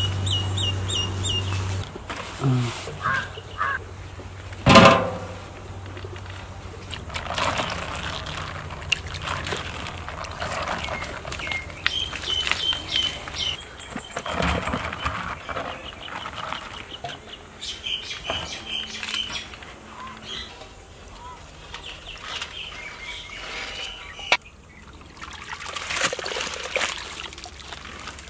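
Birds calling in short runs of quick high pips, over scattered clatter and scraping of cooking pots and ladles, with one loud knock about five seconds in.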